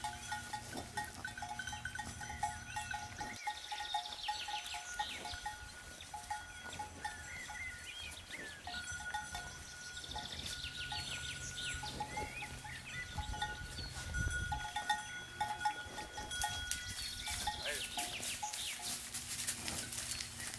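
Cowbells on grazing livestock clanking irregularly, each clank ringing on briefly, with short high chirps scattered through.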